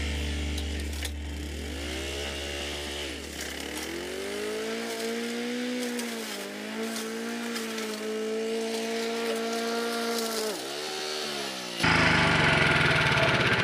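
Small petrol engine of brush-clearing equipment running hard, its pitch sagging and recovering several times as it bogs under load in the brush. A steady low hum fades out about four seconds in. Near the end it cuts abruptly to a louder, rougher engine-and-cutting noise.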